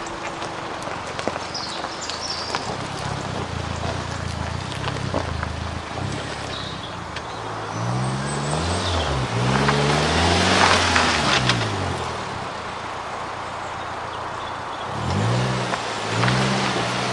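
Lifted Suzuki Jimny JB43's engine revving up and down several times while it crawls over loose gravel mounds, with tyres scrabbling on the stones at the loudest point midway. Another short run of revs comes near the end as it works for traction with its axles crossed up.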